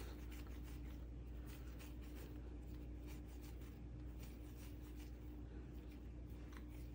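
Faint, soft rubbing and scraping of hands rolling a ball of unfloured bread dough into a round shape on the counter, over a steady low hum.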